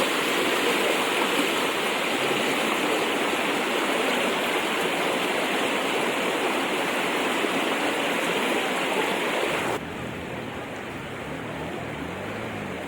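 Steady rushing of floodwater, an even loud rush. About ten seconds in it cuts off abruptly to a quieter rush with a faint low drone.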